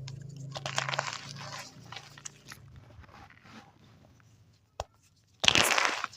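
Soft chalk being crushed with a crackling crunch that fades out over the first couple of seconds, a single small tick about five seconds in, then another sharp crunch near the end.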